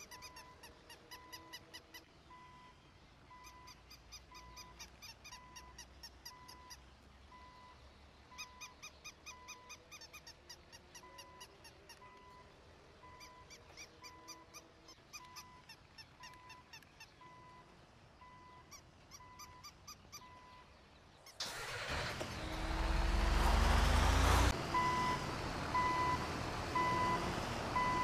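Electronic beeping like a reversing alarm, about one and a half even beeps a second, with bursts of rapid high chirping between them. About 21 seconds in, a loud rumbling noise starts, and the beeping comes back louder a few seconds later.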